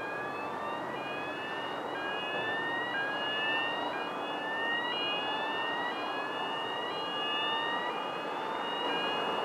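A siren-like sound of repeated rising whoops, about one a second, with a steady high tone alongside them, over a constant background hiss.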